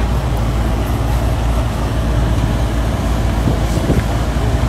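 Diesel engine of a mini excavator running steadily, a low even rumble.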